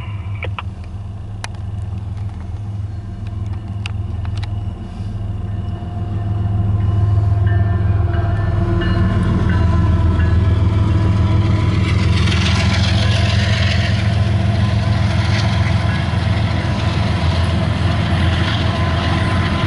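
CSX diesel locomotive of a double-stack intermodal train passing close by. Its engine's low, steady drone swells about six seconds in. From about twelve seconds the steady rolling rumble and hiss of the stack cars' wheels on the rails joins it.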